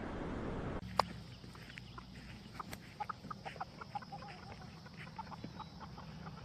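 A single click about a second in, then many short, faint bird-like clucks or chirps in quick, irregular succession.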